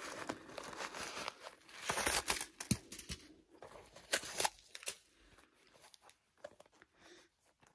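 Tissue paper rustling and crinkling as a small coated-canvas cosmetic pouch is handled, busiest in the first three seconds. Then softer, scattered clicks as the pouch's zipper is pulled open, dying away near the end.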